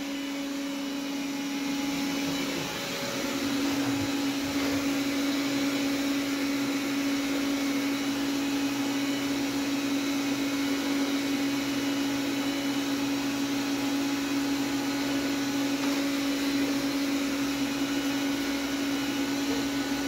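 Roborock S4 robot vacuum running at full power: a steady motor whine over even fan noise, getting a little louder about three seconds in.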